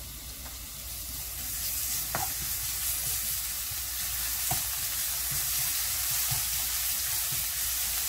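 Minced garlic sizzling in hot oil in a nonstick wok while a wooden spatula stirs it. The sizzle builds over the first couple of seconds, with two light knocks of the spatula against the pan.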